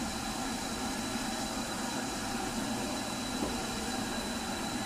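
Royal Scot class steam locomotive standing in a cloud of its own steam, letting it off in a steady hiss with no exhaust beat.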